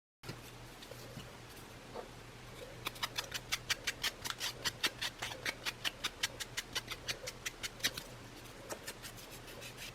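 A Distress ink pad rubbed straight onto the torn edges of cardboard coffee sleeves: quick, short scratchy strokes, about four a second, over a faint steady hum, fading out near the end.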